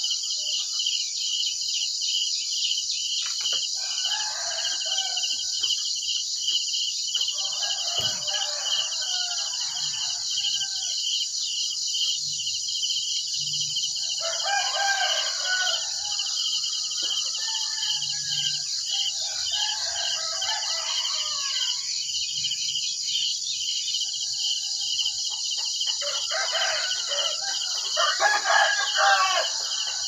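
Crickets chirring in a steady, fast-pulsing trill, with roosters crowing about six times, the loudest crow near the end.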